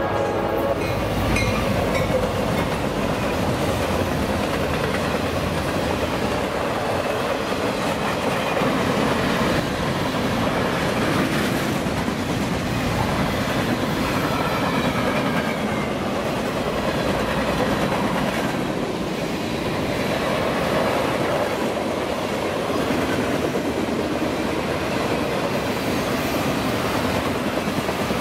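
A train rolling past on the rails, its wheels and cars making a steady, even noise.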